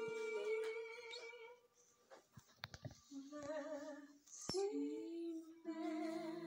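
A woman's held sung notes with soft music from an animated film's song, heard through a TV's speakers in a small room. About two seconds in, it drops to near silence for about a second before the singing resumes.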